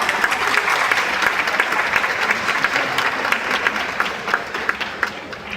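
Spectators applauding, many hands clapping together, the applause thinning and fading out near the end.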